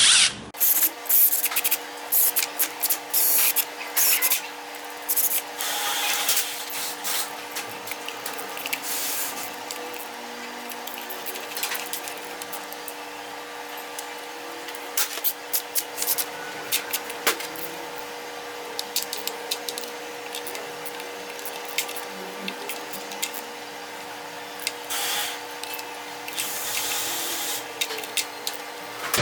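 Hand tools clicking and scraping on metal as Torx bolts are fitted and tightened into the transmission. The clicks come in irregular bunches, thickest in the first few seconds, over a faint steady hum.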